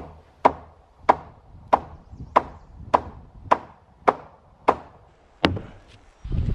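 Hammer blows on the timber of a post-and-beam barn frame: about ten sharp strikes at an even pace, roughly one every 0.6 s, the last a little later than the rest.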